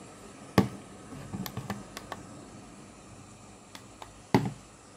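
Handling noise from a small diecast toy car being turned over in the fingers: two sharp knocks, about half a second in and near the end, with a flurry of light clicks and taps between them over a steady hiss.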